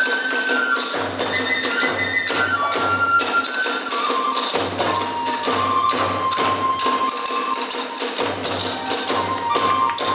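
Kagura hayashi music: a bamboo transverse flute (fue) playing a high melody of held and stepping notes over fast, steady drum beats.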